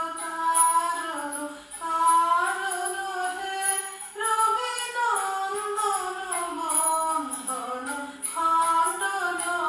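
A woman singing a Bengali Guru Vandana devotional song in long, gliding melodic phrases over a steady drone and light instrumental accompaniment.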